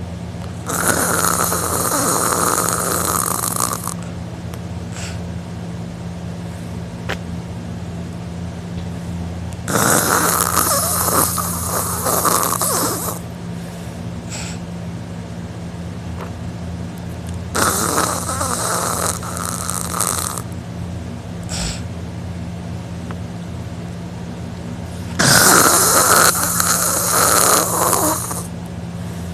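A man snoring loudly through a wide-open mouth while passed out drunk. There are four long, rasping snores, about one every eight seconds, over a steady low hum.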